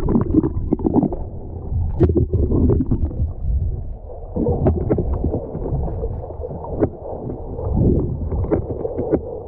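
Muffled underwater sound from a camera held below the surface: water moving around the camera, heard as a dull rumble with scattered small clicks and taps.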